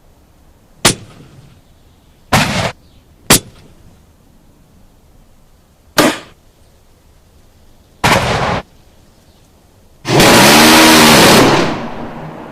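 A string of separate gunshot sound effects: single sharp shots and two short bursts of about half a second, a few seconds apart. Near the end comes a longer, loud blast of about a second and a half that dies away slowly.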